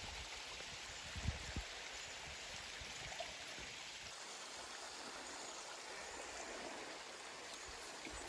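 Small mountain creek running over rocks: a steady hiss of trickling water, with a few soft low thumps a little over a second in.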